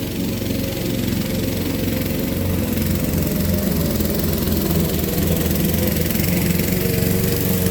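Honda HRX217 walk-behind mower's single-cylinder engine running steadily under load while mulching very tall, wet grass, the blade cutting without bogging the engine down.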